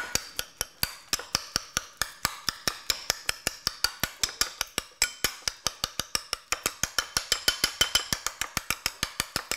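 Metal spoon mashing avocado in a ceramic bowl, clicking against the bowl in a quick, steady rhythm of about seven strokes a second.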